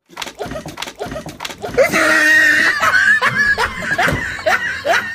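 Women laughing hard and loudly: a high squealing laugh about two seconds in, then rapid repeated bursts of laughter, about three a second.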